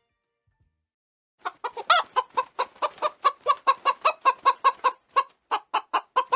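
Chicken clucking: a fast run of short, evenly spaced clucks, about five a second, starting about a second and a half in, with one louder cluck near the start.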